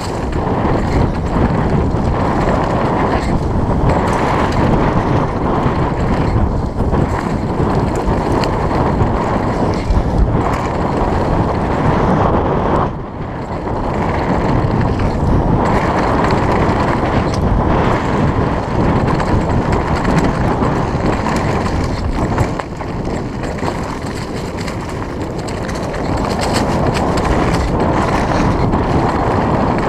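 Mountain bike descending a dirt downhill track at speed: steady rush of wind on the microphone and tyres on loose dirt, with constant short rattles and knocks from the bike over bumps.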